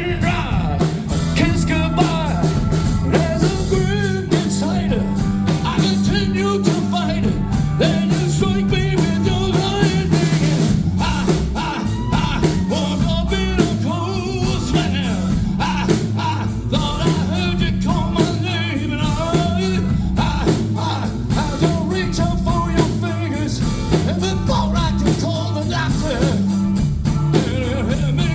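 Rock-and-roll song with a singing voice over a band with a drum kit and a steady bass line.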